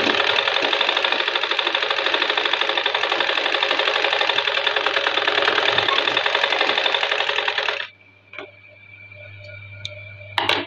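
A black straight-stitch sewing machine runs fast, stitching a seam with a rapid, even needle patter, and stops suddenly about eight seconds in. A short, sharp rustle of cloth follows near the end as the fabric is pulled from under the presser foot.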